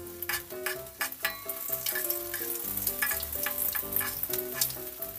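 Peeled hard-boiled eggs deep-frying in hot oil in an aluminium wok, sizzling, with the repeated clink and scrape of a metal spatula turning them. Background music with a stepping melody plays over it.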